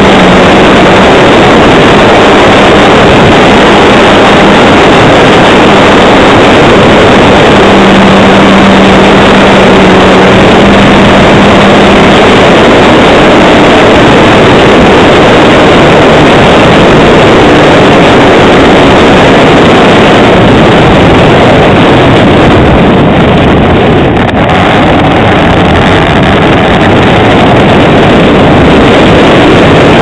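Skywalker model plane's electric motor and propeller running steadily in flight, heard loud from the onboard camera, mixed with wind rushing over the microphone. The sound eases briefly about three-quarters of the way through.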